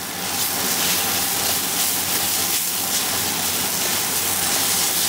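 Sliced eggplant and green chilies sizzling steadily in a hot wok as they are stir-fried with a spatula.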